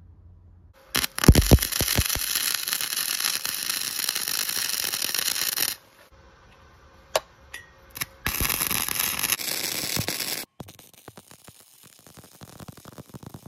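Flux-core wire-feed welder arc crackling and hissing while tacking a hinge bracket onto a steel bed-rail frame. One weld of about five seconds starts about a second in, then after a pause with a few clicks comes a second, shorter weld of about two seconds.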